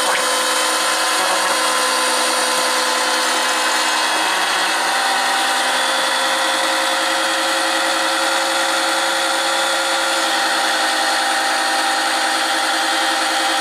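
Small, cheap oil-extractor pump running steadily with a constant motor whine, drawing the old oil out of the engine during an oil change.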